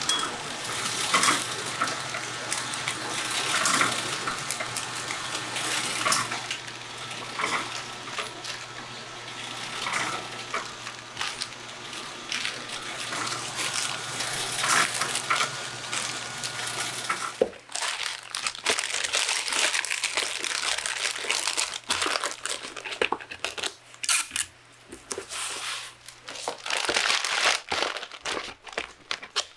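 A noodle packaging machine running, a steady hum under rustling plastic film and rapid clicking. About 17 seconds in it gives way to hands crinkling plastic packets and paper packaging as they are packed, in uneven bursts.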